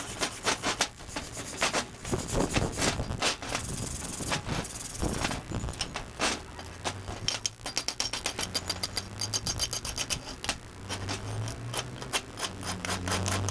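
Steel plates being handled and scraped on a metal work surface: irregular clanks and rubs, then a fast run of rapid scraping strokes over the second half.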